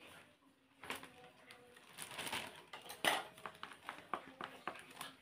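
Thin plastic bag crinkling and rustling as food is packed into it, with scattered light clicks and one sharper knock a little after three seconds.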